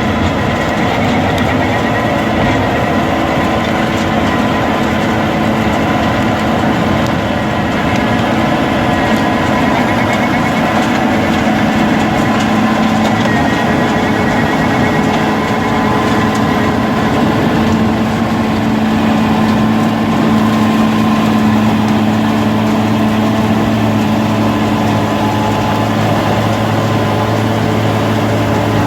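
A large tractor's diesel engine running steadily, driving a Suokone Mericrusher rotavator.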